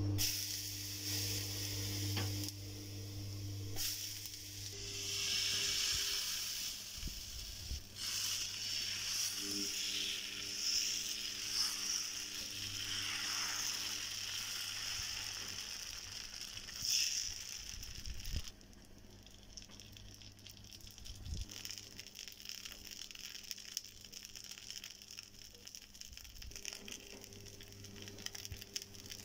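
Water and dosa batter sizzling on a hot tawa as the batter is spread. The sizzle is louder at first and drops to a quieter hiss about two thirds of the way in.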